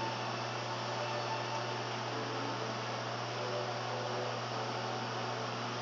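LG countertop microwave oven running mid-cook: a steady low hum over an even hiss, unchanging throughout.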